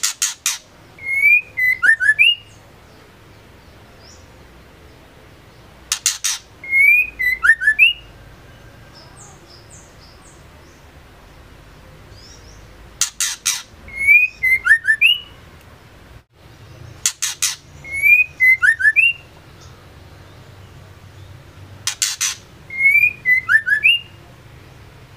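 Female white-rumped shama calling the same short phrase five times, every four to seven seconds. Each phrase is a quick run of sharp, high ticks followed by a few short, slurred whistled notes.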